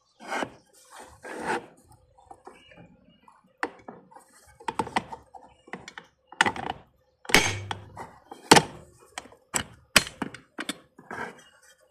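Handling noise: a series of sharp knocks and thunks at irregular spacing, about nine in all, the loudest past the middle, with softer rustling before them.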